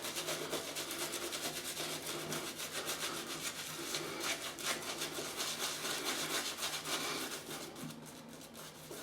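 Badger shaving brush working a lather of D.R. Harris Windsor shaving soap: a fast, steady wet swishing and rubbing of bristles, getting quieter near the end.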